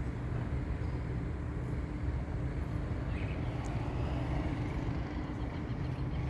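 Steady low mechanical hum, with a couple of faint bird chirps about three seconds in.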